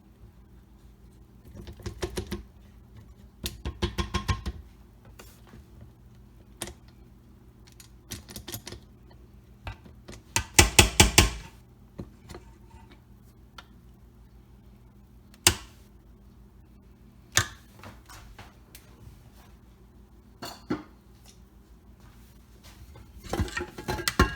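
Spatula scraping cake batter off a stand mixer's beater, heard as scattered clusters of quick clicking taps against the beater and bowl. The loudest cluster comes about eleven seconds in.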